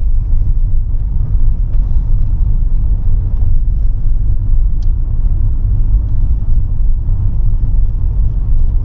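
Steady low rumble of a car driving on a snow- and ice-covered road on studded winter tyres, heard from inside the cabin.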